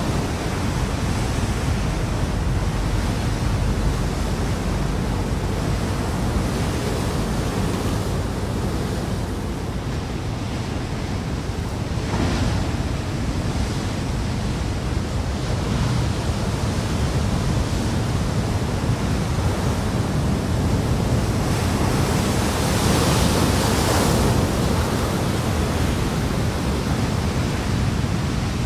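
Ocean surf breaking on a rocky shore: a steady rush of water that swells louder about twelve seconds in, and again for a few seconds past the twenty-second mark.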